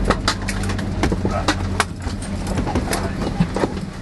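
Airliner cabin at a standstill after arrival: a low hum dying away, with a scatter of sharp clicks and clacks and faint voices as passengers stir, unbuckle and open overhead bins.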